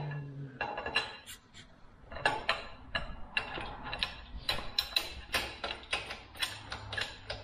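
A 1-ton hydraulic engine crane being jacked by its hand pump lever: a run of metallic clicks and clanks, about two or three a second, uneven in spacing.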